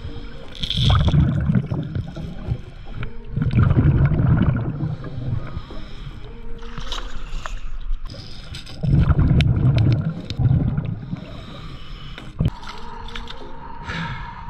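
Water gurgling and sloshing around a diver's GoPro in several loud surges a few seconds apart, as the diver moves from underwater to the choppy surface.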